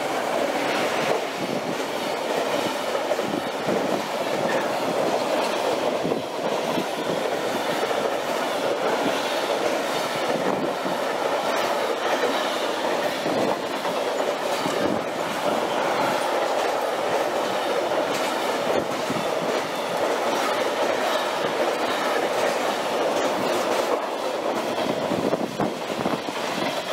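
A train passing close by: steady running noise with wheels clattering over the rail joints. It rises sharply at the start, holds for about 25 seconds and eases a little near the end.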